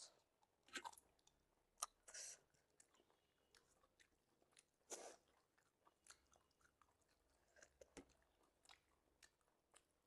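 Faint close-up eating sounds: a person chewing and biting food, with scattered mouth clicks and short crunchy bursts.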